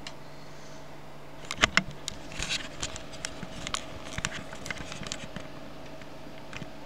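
Handling noise: a run of light clicks, knocks and rustles, starting about a second and a half in with two sharp clicks close together and dying away about two seconds before the end. A steady low hum sits underneath.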